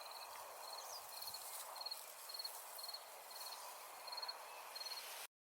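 A cricket chirping, short pulsed chirps repeating about twice a second, over a faint outdoor hiss; the sound cuts off abruptly near the end.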